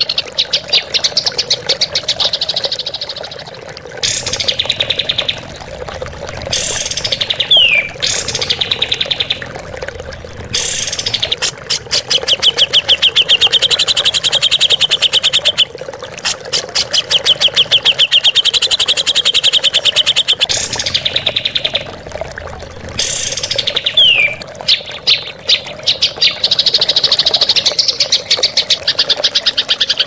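Songbirds calling in harsh, fast rattling trills, delivered in bursts of a few seconds with short gaps between them: the rough, drawn-out 'tembakan' shots used to train caged birds. Twice a quick falling whistle cuts in.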